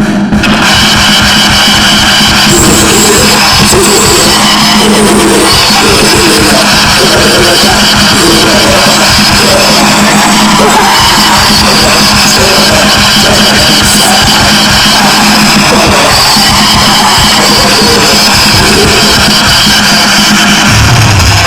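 Loud heavy rock music with a fast, dense drum kit playing without a break.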